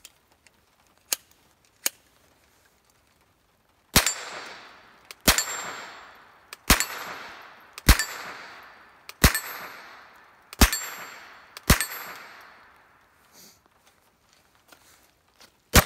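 Seven single shots from an AR-15 pistol firing .22LR through a CMMG conversion bolt, spaced a little over a second apart, each followed by a short echo. Two light clicks come before the shooting starts, and a quick string of shots begins at the very end.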